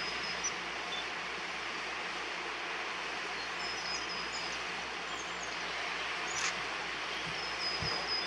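Steady outdoor rushing noise, with a few short, high, thin whistled notes from a small bird: near the start, about four seconds in, and near the end.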